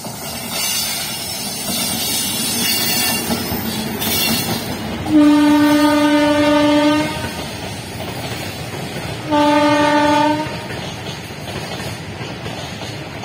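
WAG-9 electric locomotive passing at speed, sounding its horn twice, a blast of about two seconds and then a shorter one, over the steady noise of an empty freight rake's wagons rolling along the track.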